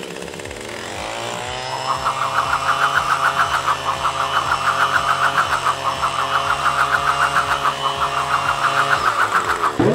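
Leaf blower motor spinning up over the first two seconds, then running steadily with a fast flutter, and shutting off just before the end.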